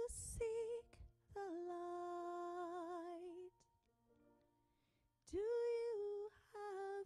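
A woman singing a solo, wordless long held notes broken by short pauses; the longest note, about a second in, wavers with vibrato, and a later one begins with an upward swoop.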